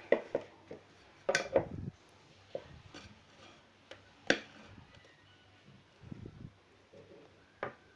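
Scattered light clicks and knocks of kitchen utensils against a mixing bowl as a portion of biscuit dough is taken out, the loudest about a second and a half in and again about four seconds in.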